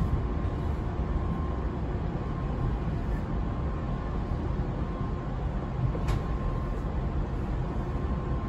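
JR Hokkaido 733 series electric train running, heard from inside the carriage: a steady low rumble with a faint steady tone above it, and one sharp click about six seconds in.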